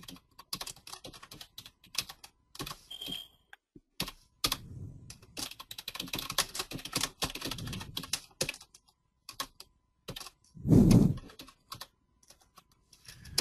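Typing on a computer keyboard: quick, irregular keystrokes with short pauses. About ten and a half seconds in there is a short, loud, low burst of noise, like a bump.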